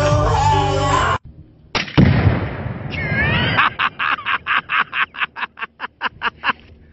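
Music cuts off about a second in. A single loud explosion follows with a fireball, its rumble dying away over about a second. Then comes a quick run of short, evenly spaced sounds, about four a second, growing weaker.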